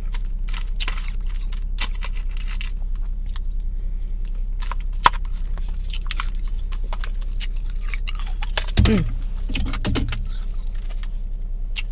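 Crisp crackling and crunching of soft, powdery freezer-frost ice being chewed, many small clicks one after another, over a steady low hum inside a car. A brief pitched sound slides down about three quarters of the way through.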